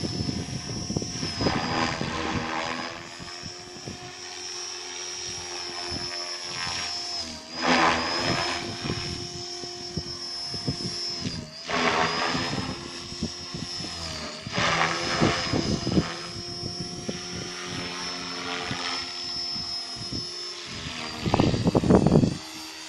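Gaui X5 electric RC helicopter in flight: the steady high whine of its motor and rotor head, with a brief dip in pitch twice. Rushing swells of rotor noise come and go as it manoeuvres, and the loudest bursts come near the end as it comes in low.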